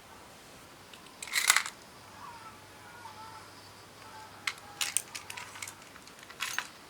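Small crafting handling sounds with scissors: a crisp snipping burst about a second and a half in, then a cluster of sharp clicks and snips, and one more burst near the end.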